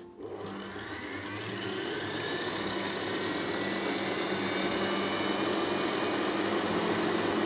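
Electric stand mixer whipping chilled liquid cream with its whisk: the motor starts up and its whine rises in pitch over the first two seconds or so as it comes up to speed, then runs steadily.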